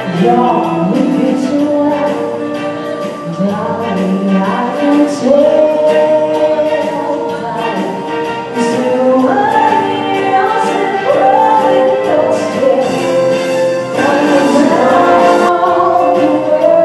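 Live music: a woman singing into a microphone, accompanied by electric guitar.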